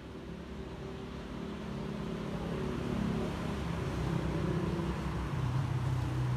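A motor vehicle's engine hum, low-pitched and growing steadily louder, its pitch shifting slightly partway through.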